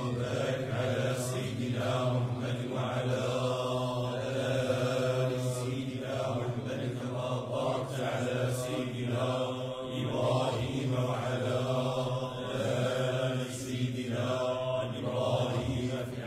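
Sufi dhikr chanted in Arabic by a Moroccan group of male voices: a steady low held tone with voices rising and falling above it.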